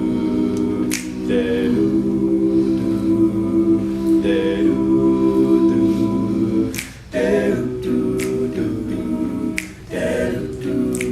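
A cappella vocal group singing held, wordless backing chords that change every couple of seconds, with finger snaps keeping time.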